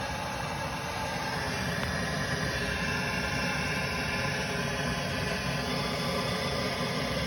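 Soldering torch flame burning with a steady hiss, heating a joint until the solder flows.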